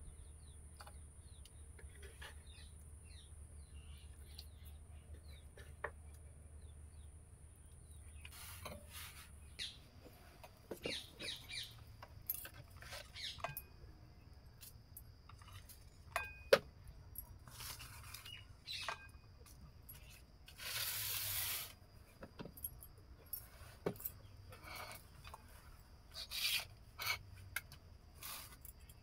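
Faint bird chirps over a low steady hum, then light clinks of steel bowls and plates and scattered clicks as food is eaten by hand. A brief burst of noise comes about two-thirds of the way through.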